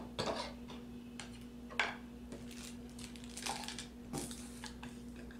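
Light clicks, clacks and rustles as small plastic camera accessories, bagged parts and a paper booklet are handled and set down on a wooden table. The sharpest clack comes about two seconds in, over a steady low hum.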